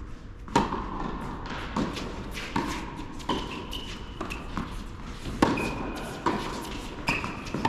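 Tennis serve and rally in an indoor tennis hall: sharp racquet-on-ball hits and ball bounces about once a second, each echoing briefly, starting with the serve just after the start.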